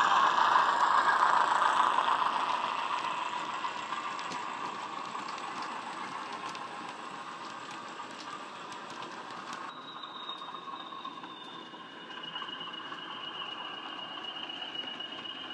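Sound-fitted Bachmann OO-gauge class 20 model diesel, its speaker playing the English Electric engine sound file, with the model wagons' wheels clicking over the track as the train passes and fades away. About ten seconds in the sound changes suddenly to a steady high whistle.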